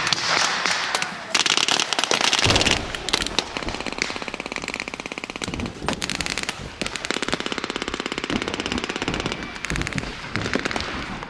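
Blank-firing machine guns in long rapid bursts, several overlapping, with scattered single gunshots between the bursts.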